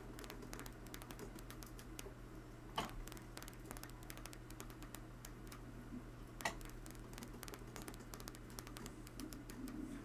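Homemade rotary switch running, with rapid irregular clicking as its wire contacts strike the hard-drive bearing rollers and pulse the coil. Two sharper clicks come about three and six and a half seconds in, over a low steady hum.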